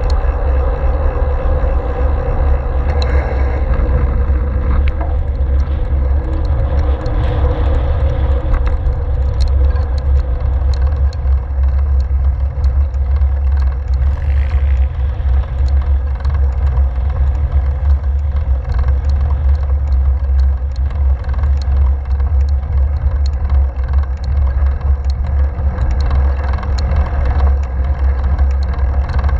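Wind buffeting a GoPro's microphone on a moving road bike: a loud, steady low rumble, with faint tyre-on-asphalt noise beneath it.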